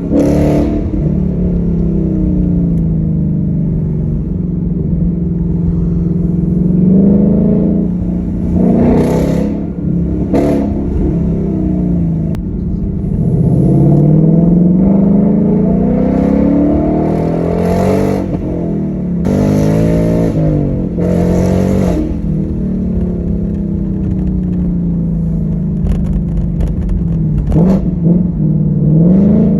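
2021 Ford Mustang GT's 5.0-litre V8 driving under way, its pitch climbing and dropping back several times as it accelerates and shifts, over a steady low exhaust rumble. A few short, sharp noisy bursts cut in around the middle.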